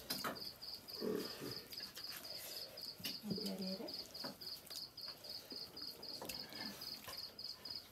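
Cricket chirping steadily, a high pulsing chirp repeating about three times a second, with soft scattered clicks of fingers working rice against a steel plate.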